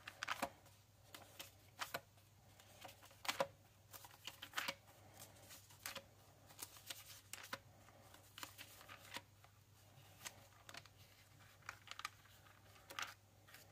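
Thin Bible-paper pages of a Cambridge Pitt Minion Bible being turned and flicked by hand: a string of soft, irregular page rustles and flicks.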